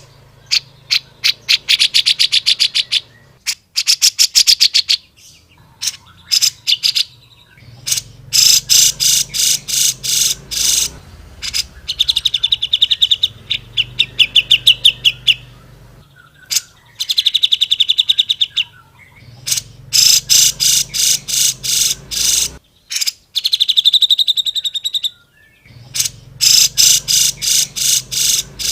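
Grey-cheeked bulbul (cucak jenggot) singing loudly in repeated phrases of very fast, trilled chirps, broken by short pauses, with some phrases dropping to a lower trill.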